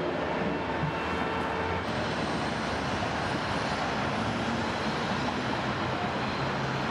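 Steady roar of freeway traffic, with the hum of passing engines.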